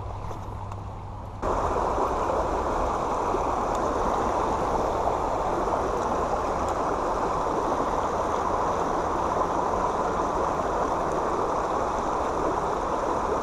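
Creek water running, a steady rush that comes in abruptly about a second and a half in.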